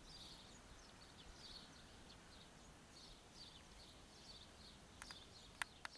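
Faint, repeated short chirps of small birds over a quiet outdoor background, with a few faint clicks near the end.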